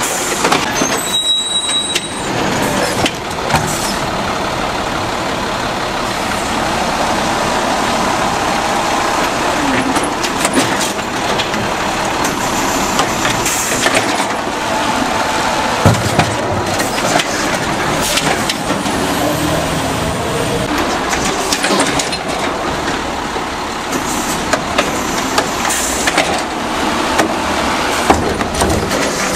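Automated side-loader garbage truck emptying a plastic recycling cart: diesel engine and hydraulic lift arm running steadily, with the cart knocking repeatedly against the arm and hopper as it is dumped and set down, and short air-brake hisses.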